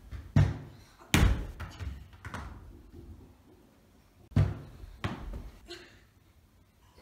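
A football striking goalkeeper gloves and hard surfaces indoors: five dull thuds in two groups, with a quiet gap of about two seconds in the middle.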